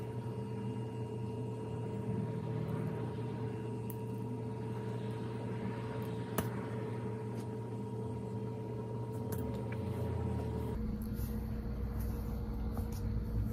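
Steady low mechanical hum with a faint whine over it that cuts off about eleven seconds in, and a few faint clicks.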